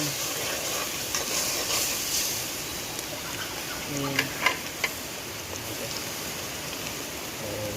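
Pepper paste frying in hot palm oil in a pot over a wood fire, sizzling steadily. A few sharp clicks sound about four to five seconds in.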